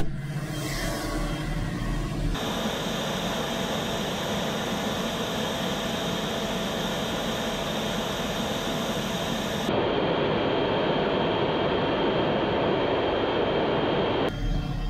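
Claas Xerion tractor with its hitched Horsch Focus 6 TD seed drill running, a steady machine noise with a thin high whine. The sound shifts abruptly about two seconds in and again around ten seconds in.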